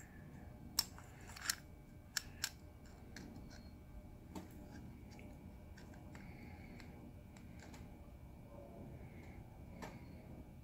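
Mitutoyo dial caliper being slid and closed onto the teeth of a small steel lathe gear: four sharp metal clicks in the first two and a half seconds, then faint handling and rubbing while the jaws are settled on the gear.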